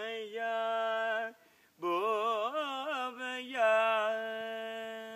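Solo male voice singing in Carnatic Indian style with no accompaniment. A held phrase is followed by a short breath, then a second phrase with quick wavering pitch ornaments. It settles into a long held note that slowly fades near the end.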